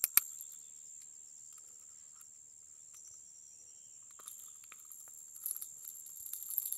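Small metal pliers gripping and twisting a plastic minnow lure's treble hook free from a snook's jaw: one sharp metallic click just after the start, then scattered small clicks and crunching from about four seconds in.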